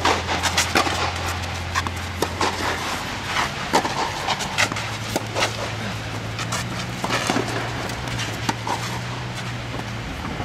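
Tennis rally on a clay court: a serve, then a series of racket strikes on the ball with the players' footsteps scuffing the clay. Underneath runs a steady low hum that steps up in pitch about halfway through.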